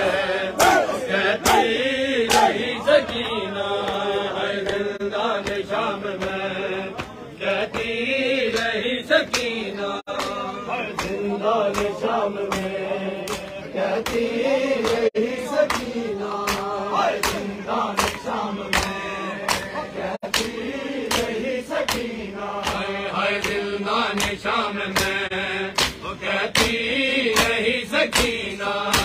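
Men chanting a noha lament together in repeated phrases, over a steady beat of hands slapping bare chests in matam.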